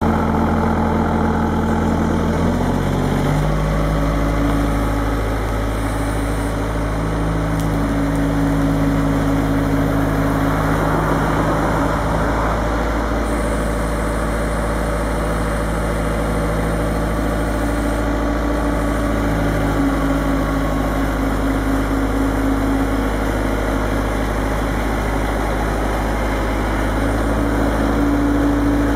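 Bobcat S130 skid steer loader's diesel engine running steadily. Its engine speed shifts about three seconds in, then holds even.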